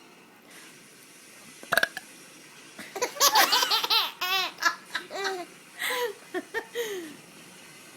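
A brief sharp sound near two seconds in, then a baby laughing in a run of short bursts from about three to seven seconds.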